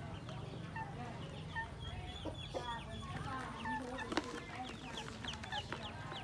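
A bowlful of ducklings peeping constantly in short, high, falling chirps, with a hen clucking among them. A sharp tap comes about four seconds in as the hen's beak strikes the plastic bowl.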